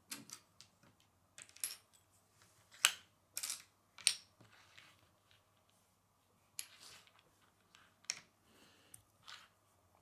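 Small plastic Lego plates handled on a wooden tabletop: irregular sharp clicks and light taps as pieces are set down, slid and picked up, the loudest two a little under three seconds and about four seconds in.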